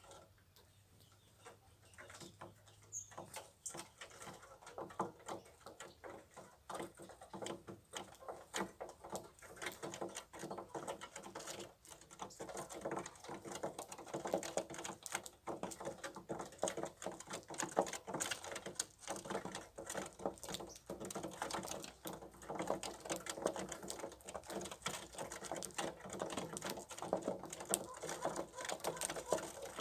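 Small birds pecking at scattered feed: a dense patter of quick little clicks that grows busier and louder after the first couple of seconds.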